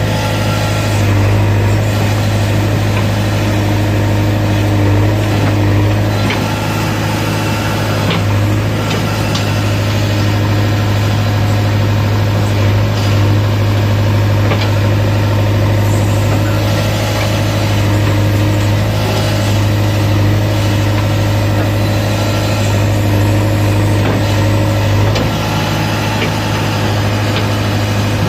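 Diesel engine of a JCB 3DX backhoe loader running steadily with a deep hum as the backhoe digs and loads soil, with a few faint knocks.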